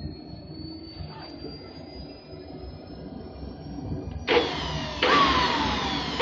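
RC micro jet turbine on its test run. A thin high whine climbs slowly in pitch, then about four seconds in a loud jet rush starts abruptly, with whine tones sliding down in pitch. It steps louder again a second later.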